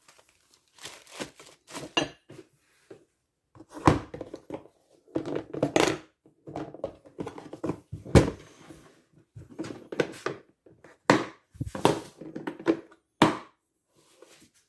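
Objects being handled and set down: irregular thunks and knocks mixed with rustling, in a small room.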